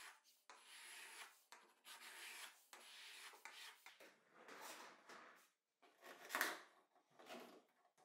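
Faint rubbing and scraping in short strokes, a router plane shaving the bottom of a groove, followed by flexible dust-collection hose and its plastic connectors being handled, with two louder bumps about six and seven seconds in.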